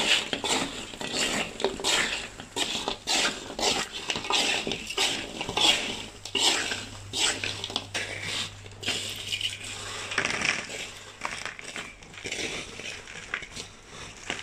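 Metal spatula scraping and knocking against a wok in an irregular rapid run as pieces of fried snake meat are stir-fried and tossed.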